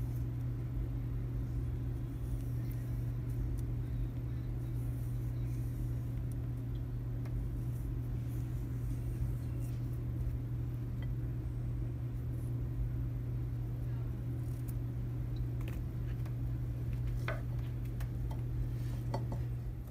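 A steady low hum runs throughout. Near the end, a few light clicks and snaps come from a small knife cutting through asparagus stalks.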